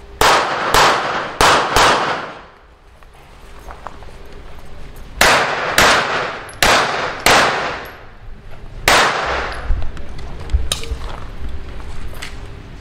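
Pistol shots fired in quick strings during a practical-shooting course of fire: four rapid shots, a pause, four more, then a single shot, each with a short echo, followed by two fainter sharp cracks.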